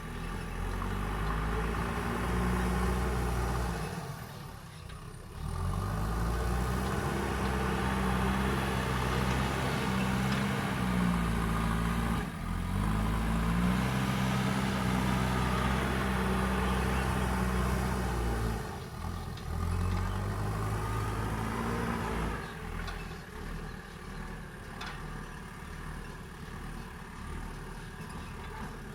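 Heavy diesel engine of earth-moving machinery running under load, its revs rising and falling repeatedly as it works, with several brief dips. It settles lower and quieter near the end.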